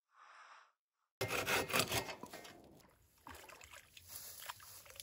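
Rustling and brushing of tall grass and plants as someone moves and reaches into them, with many short crackles. It starts suddenly about a second in, is loudest at first, then goes on more softly; a brief soft sound comes just before it.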